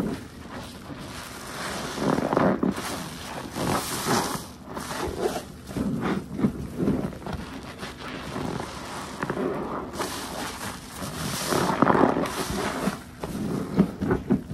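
Detergent-soaked car-wash sponge being squeezed again and again, squelching with crackling foam; one squeeze about every two seconds.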